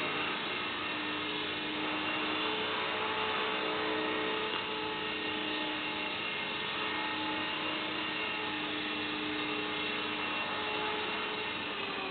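Small electric radio-controlled helicopter in flight, its motor and rotor blades making a steady whine with a buzzing hum.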